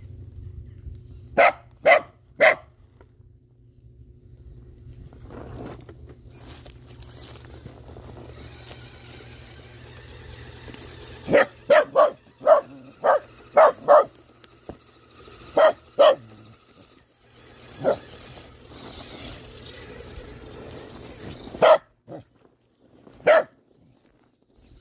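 A dog barking in short, sharp barks at intervals: three about a second and a half in, a quick run of about seven around the middle, then single barks spread through the rest.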